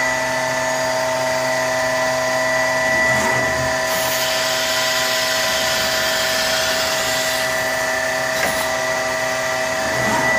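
CNC router's vacuum hold-down pump running with a steady whine. About four seconds in, a hiss of compressed air lasts some three seconds, with faint clicks before and after, as the automatic tool changer picks up a tool.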